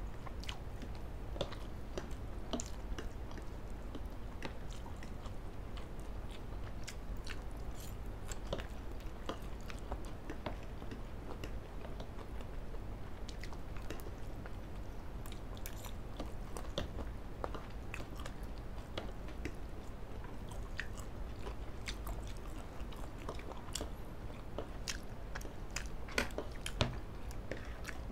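Two people chewing and eating fried instant noodles and grilled chicken with forks, close to the microphone: wet chewing and mouth sounds with many short clicks scattered throughout.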